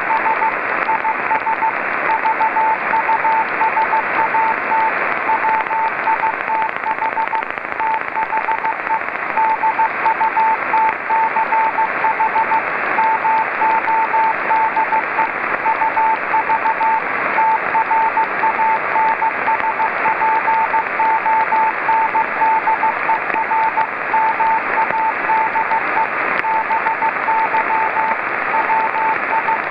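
Morse code (CW) from the VO-52 amateur radio satellite's Dutch transponder downlink, heard through a Yaesu FT-817 receiver. It is a steady-pitched beeping tone keyed in dots and dashes over a constant bed of receiver hiss.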